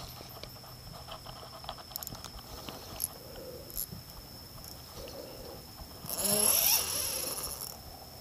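A steady high insect drone with scattered small clicks from handling a spinning reel and rod. About six seconds in, a loud noisy rush with a brief rising cry-like sound lasts about a second and a half.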